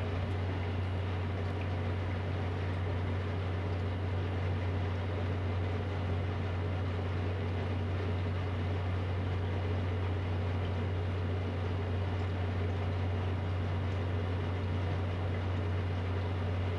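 A steady low hum under an even hiss, unchanging throughout.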